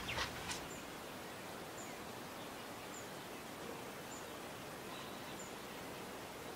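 Faint rural outdoor ambience: a steady quiet hiss with a short, high chirp repeating about once a second, like a distant bird or insect.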